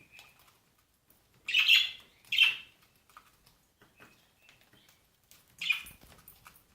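Cockatiels calling: two loud harsh calls in quick succession about a second and a half in and a third near the end, with soft short chirps between them.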